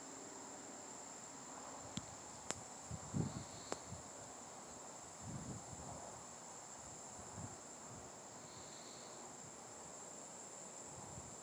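Steady high-pitched chirring of crickets. A few sharp clicks and low thumps come between about two and eight seconds in.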